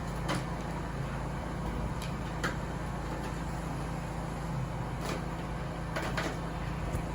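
A steady low hum of running equipment, with a few light clicks and taps from equipment being handled and hooked up, including two close together about six seconds in.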